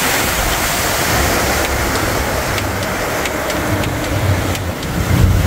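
Passenger speedboat running fast over open sea: a loud rush of wind and water spray over the engine's low drone, with a few short knocks from the hull meeting the waves.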